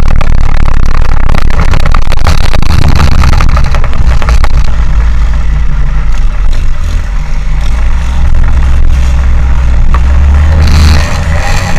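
Car driving on tarmac, heard from a camera mounted on the outside of the car: a very loud, steady low rumble of engine, tyres and wind.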